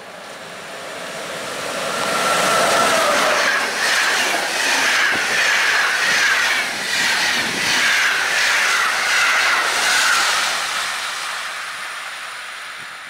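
A Polish EP09 electric locomotive and its Intercity coaches passing through a station at about 155–160 km/h. The rush of wheels and air rises as the train approaches, stays loud with a fast, even clickety-clack as the coaches go by, then fades as the train draws away.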